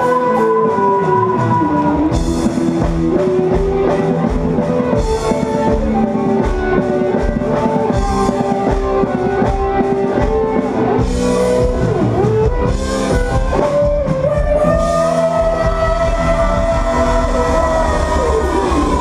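Live rock band playing an instrumental passage: electric guitars hold a long, sliding lead melody over bass and a drum kit.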